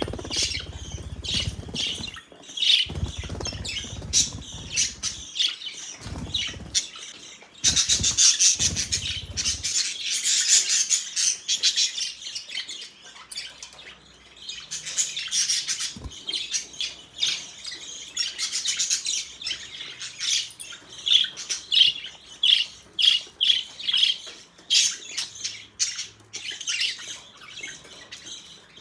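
Pet budgerigars chirping and chattering busily, with dense rapid chirps throughout. A low rumble comes and goes during roughly the first ten seconds.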